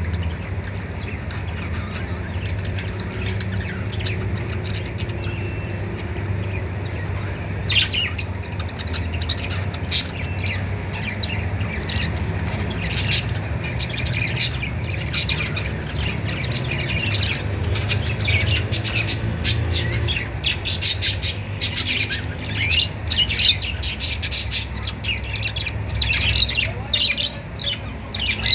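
Budgerigars chirping and squawking together, many short high calls that grow busier after several seconds and busiest in the second half, over a steady low hum.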